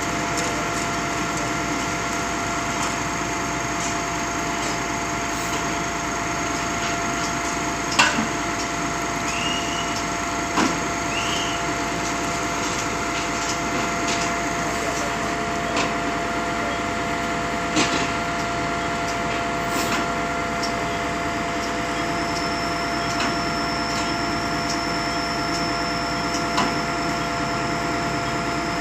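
Concrete pump machinery running steadily with a hum and several fixed whining tones, with occasional sharp knocks, the loudest about eight seconds in.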